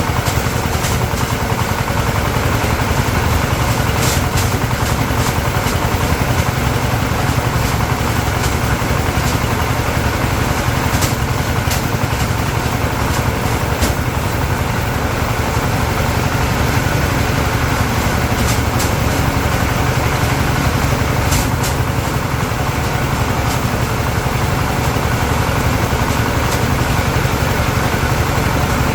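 Small engine running steadily at a constant speed, with a few sharp clicks scattered over it.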